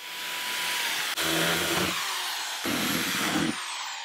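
Electric drill running and boring pilot holes through the truck's aluminum roof sheet at the corners of a marked vent opening. The sound twice grows heavier and lower as the bit bites into the metal, and cuts off suddenly at the end.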